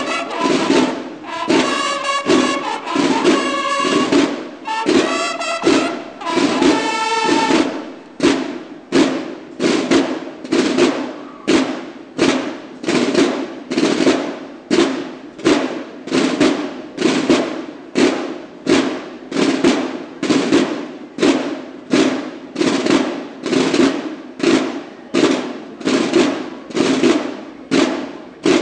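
Banda de guerra of bugles and drums playing: bugle notes over the drums for about the first seven seconds, then the bugles stop and the drums carry on alone in a steady, evenly repeated beat.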